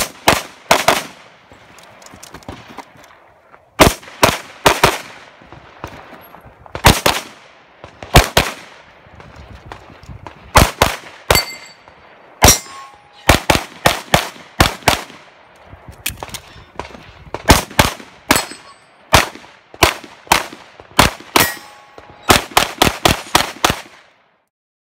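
Open-division competition pistol (Limcat Custom J-38) fired in quick pairs and strings of shots, with pauses between strings as the shooter moves. A few hits are followed by a short metallic ringing from steel targets. The shooting stops about a second before the end.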